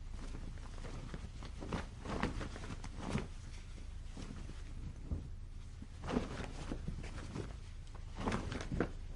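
Cloth on a clothesline flapping gently in the wind, in irregular soft flaps that come in little clusters, over a steady low wind rumble.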